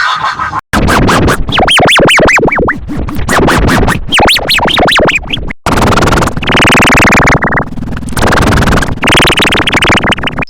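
Nose-snoring sound effects. First comes a run of quick whistling glides that rise and fall. After a short break about halfway, loud buzzing snores follow, one about every second or two.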